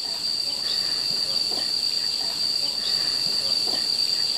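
Insects keeping up one steady, unbroken high-pitched drone, with faint short sounds beneath it.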